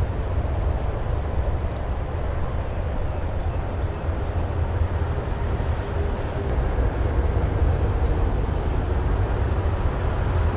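Steady low rumble of distant vehicle traffic, with a faint engine hum coming up over the last few seconds.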